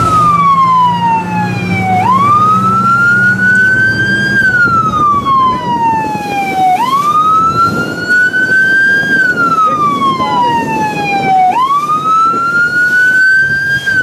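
Fire-rescue boat's electronic siren sounding a wail: a tone that rises over about two seconds, then falls more slowly, repeating about three times. A low engine hum and wind or water noise run beneath it.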